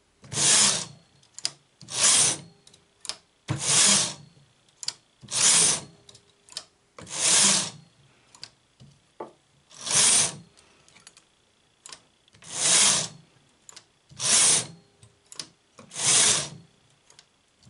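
Domestic knitting machine carriage slid back and forth across the metal needle bed, a rasping sweep about every two seconds, nine passes in all, each knitting one row. Faint clicks between passes as latch needles are pushed forward by hand.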